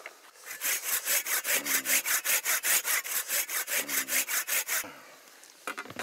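Hand pruning saw cutting through a green Korean ash branch in fast, even back-and-forth strokes, which stop about five seconds in.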